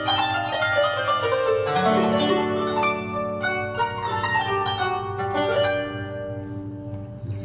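Yamaha PSR-A5000 arranger keyboard playing its "New Qanun Live" voice, a sampled qanun: quick runs of plucked zither notes, the last notes ringing out near the end.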